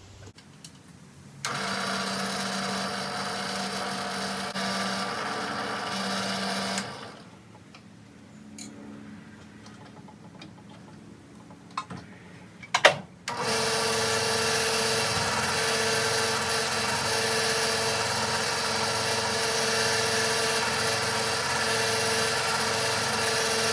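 Drill press spinning a buffing wheel to polish a brass ring: the motor runs steadily for about five seconds and stops. After a pause with a few small clicks and one sharp knock, it starts again and runs steadily.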